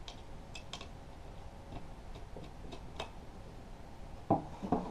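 Light, scattered ticks and clicks from hands working the bolt and nut through the wooden boards of a homemade tip-up, with two duller knocks a little past four seconds in.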